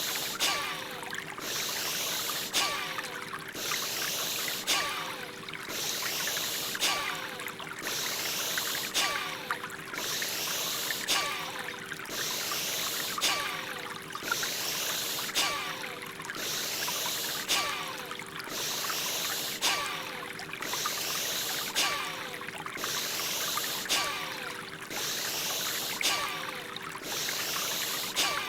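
Rhythmic forceful breathing of Bhastrika (bellows breath), a hissy breath stroke about once a second, over a steady flowing-water background with a low sustained drone.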